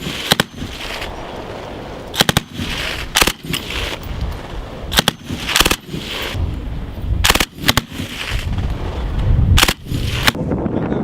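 Military small-arms fire on a range: about a dozen sharp shots spread irregularly, some single and some in quick pairs or triplets, one to two seconds apart.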